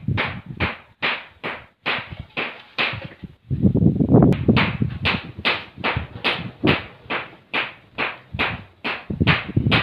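Even, rhythmic sharp knocks, about three a second, keeping a steady beat throughout.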